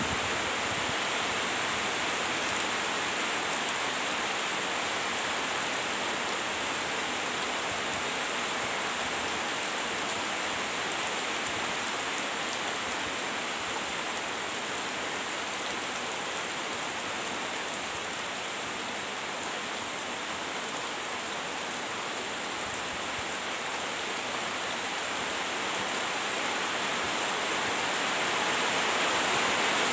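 Heavy rain pouring down steadily, a dense even hiss that grows a little louder near the end.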